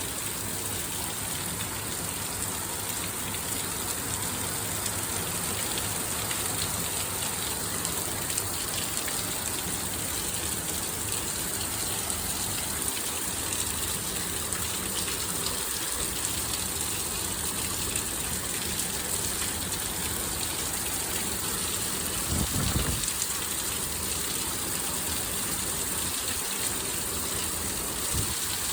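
Torrential thunderstorm rain pouring steadily, with water gushing from overflowing gutters; a short low rumble comes about three-quarters of the way through.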